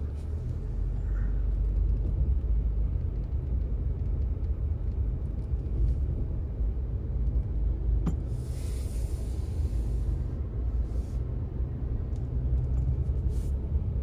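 Steady low rumble of a car heard from inside the cabin, with a single sharp click about eight seconds in and a brief hiss just after it.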